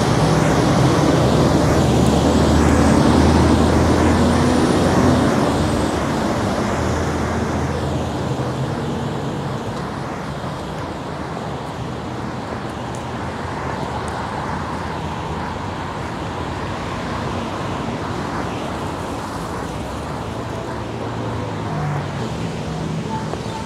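Traffic on a busy city road: a large vehicle's engine runs loud and close for the first several seconds, then fades into a steady wash of passing cars, with another engine passing near the end.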